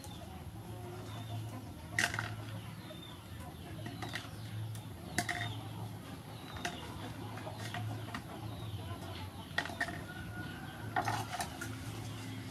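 Short bird calls and clucks now and then, over a low steady hum.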